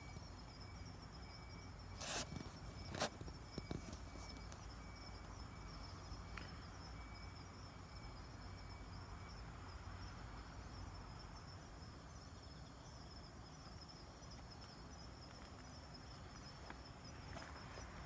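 Night insect chorus with kanetataki crickets calling: a steady high trill, and a run of short, evenly spaced chirps that stops about halfway. Two sharp knocks about two and three seconds in.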